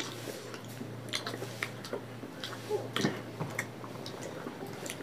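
Eating sounds up close: hands mixing and squishing rice and rohu fish curry on steel plates, and chewing, with scattered small clicks and wet smacks over a faint steady low hum.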